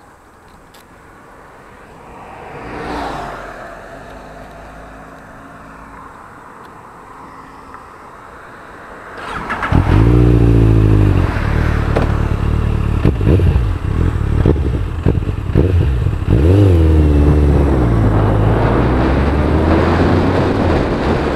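Motorcycle engine running quietly, then from about nine seconds in revving up loudly and accelerating away, the revs climbing and dropping back as it shifts up through the gears.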